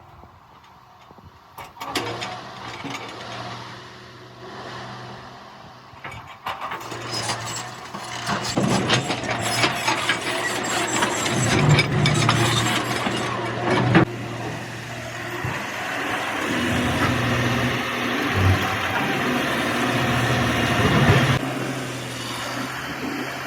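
A heavy vehicle's engine starts up and runs, growing louder after a quiet start. Around the middle it comes with many sharp knocks and clatter, with one strong knock, then it runs on steadily.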